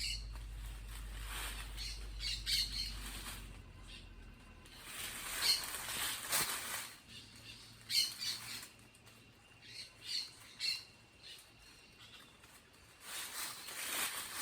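Birds squawking in the fruit trees, short calls every couple of seconds, with brief rustling swishes of leaves and branches.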